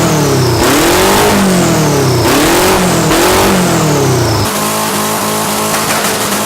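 A car engine accelerating hard through several gears, its pitch climbing and dropping with each shift, with a high whistle over each pull. About four and a half seconds in it gives way to music with a steady beat.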